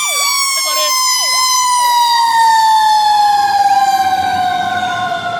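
Fire engine and ambulance sirens on an emergency response: one siren winds down in a long, slowly falling wail while a second siren yelps quickly underneath, about twice a second.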